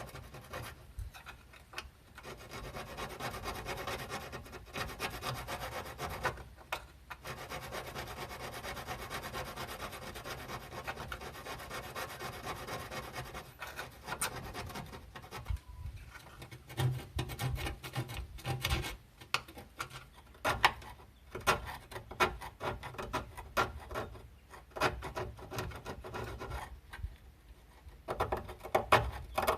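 Sanding on the car's body panel by hand to take it back through paint to the rust. About a dozen seconds of quick, even rubbing strokes, then shorter, separate scrubbing strokes with brief pauses.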